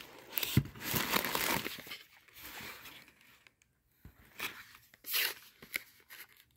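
Plastic packaging rustling as it is handled, in a run of bursts over the first few seconds and then a few shorter bursts.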